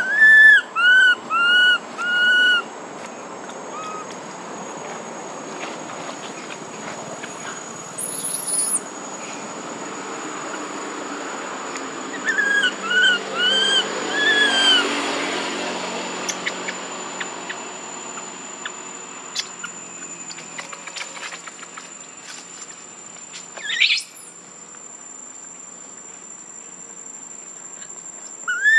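Baby long-tailed macaque crying in short, arched, rising-and-falling calls, four in quick succession at the start and four more around the middle, over a steady high insect whine.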